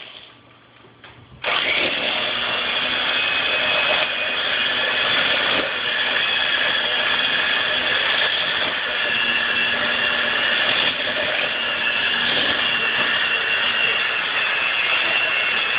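Electric mixer switched on about a second and a half in, then running steadily as it mixes cookie dough.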